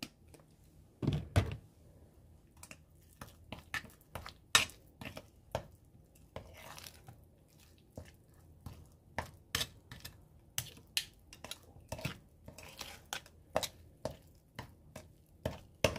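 A utensil stirring thick gochujang seasoning paste in a bowl, mixing in a drop of soy sauce to loosen it: irregular clinks and taps against the bowl, with a few brief scraping sounds.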